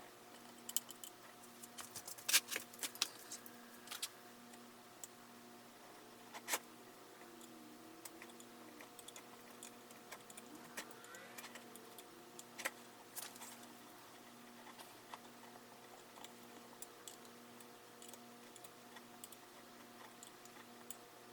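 Scattered light clicks and taps of metal parts and tools being handled, with a few faint scrapes. They come in a cluster a couple of seconds in and a few more later. A faint hum pulsing about once a second runs underneath.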